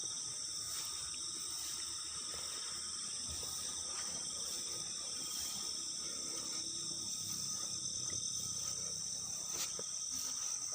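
Night insect chorus, mostly crickets, trilling steadily in several high-pitched bands.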